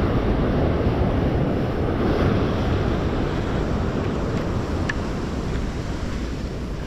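Sea surf washing against a concrete-block breakwater, with wind rumbling on the microphone. The noise is steady and eases slightly toward the end.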